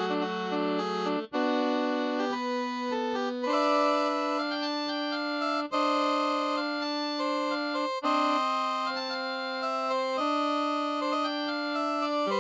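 Music played on a Casio CTK-2550 electronic keyboard: held chords that change every second or two.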